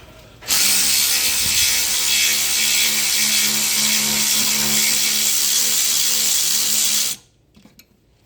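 Electric ratchet running steadily for about six and a half seconds as it spins out the upper brake caliper bolt with an 8 mm hex bit, then stopping abruptly.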